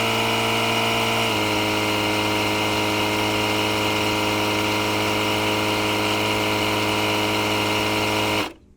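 ETENWOLF Vortex S6 portable air compressor running steadily while inflating a truck tire. About a second in its pitch drops slightly as it slows for the last psi or two, and near the end it cuts off, the sign that the tire has reached its preset 35 psi.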